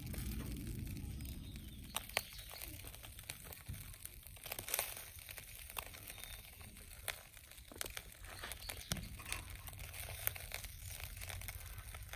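Chicken skewers sizzling on a wire grill over glowing charcoal, with irregular sharp crackles and pops.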